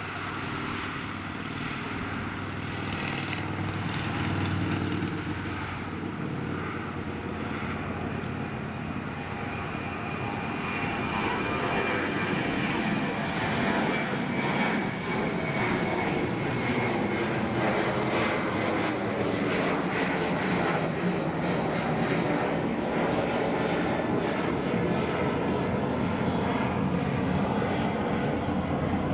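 Jet noise from an Egyptair Boeing 737-800's CFM56 turbofan engines, a steady roar that grows gradually louder.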